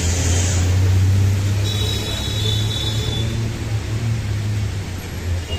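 Steady low rumble of road traffic noise, with a thin high squeal that holds for about a second and a half about two seconds in.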